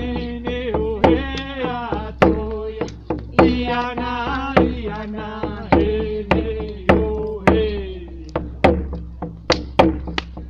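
A voice chanting a sweat-lodge song in vocables, long gliding sung notes, over steady drum beats.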